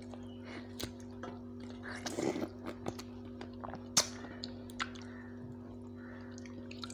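Mouth sounds of eating ripe mango slices: wet smacks and sucking clicks, a longer slurp about two seconds in and a sharp smack about four seconds in. A steady low hum runs underneath.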